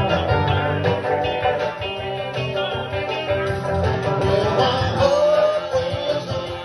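Live band music: a man singing into a microphone over guitar backing, in a rock-and-roll style, played through a PA.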